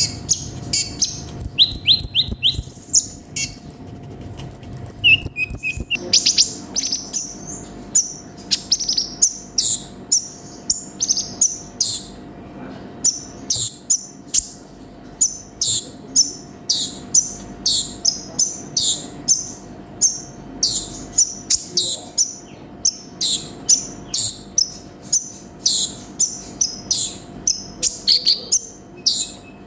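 Olive-backed sunbird (konin) singing hard: a fast run of sharp, high chirps, with a few short trills in the first few seconds and then an even string of chirps, about two or three a second.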